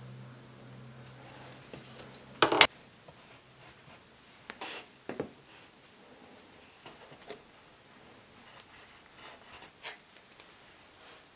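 Hand marking tools handled on a wooden workbench: a pair of sharp knocks about two and a half seconds in as a tool is set down, then scattered lighter clicks and taps. A faint low hum stops with the knocks.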